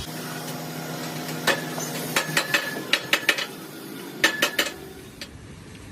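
Light metallic clinks and taps, about ten in quick clusters, some leaving a brief ringing note, over a steady hum that stops about halfway through.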